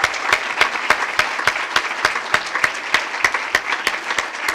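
Audience applauding steadily, with a few sharper individual claps standing out at about three a second.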